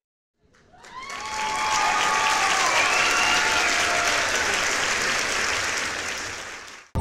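Crowd applause with some cheering voices, fading in about half a second in, holding steady, then cutting off suddenly near the end.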